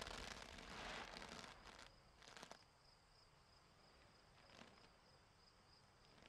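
Near silence: a faint rustle that fades out over the first two seconds, then two faint soft taps, over a thin, steady high tone.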